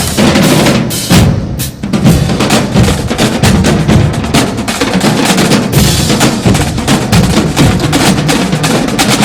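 Drum-heavy dance music track with no vocals, driven by fast, dense drum hits and bass drum, with a short break in the high end about one and a half seconds in.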